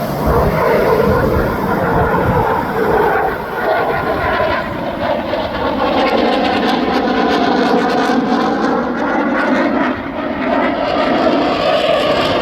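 Loud jet noise from a Boeing EA-18G Growler's twin General Electric F414 turbofans as it flies the display, a steady rushing sound whose tone slowly shifts as the aircraft moves.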